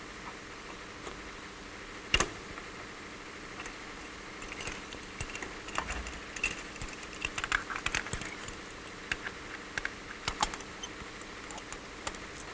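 Metal clicks and rattles of a heavy power-cable plug and its chained cover cap being handled and fitted to a gun's cable junction box, with one sharp click about two seconds in and a run of small irregular clicks after, over a steady hiss.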